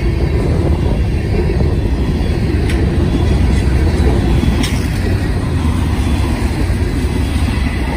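CSX freight train of covered hopper cars rolling past: a steady low rumble of wheels on the rails, with two light clicks about three and five seconds in.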